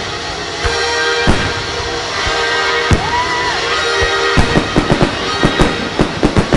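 Music from a fireworks show's soundtrack with firework shells bursting over it: a few single bangs, then a rapid run of bangs from a little past the middle.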